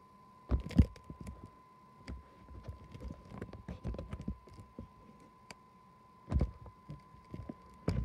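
Handling noise from a phone held while filming: irregular low bumps and rubbing right on the microphone, coming in clusters, over a faint steady high tone.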